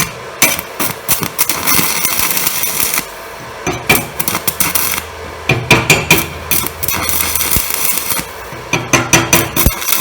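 Manual arc welding with a basic-coated UONI 13/55 electrode being struck again and again: clusters of sharp taps and cracks as the rod is struck on the plate, alternating with stretches of steady crackling arc. The arc is hard to strike, typical of basic (low-hydrogen) coated electrodes.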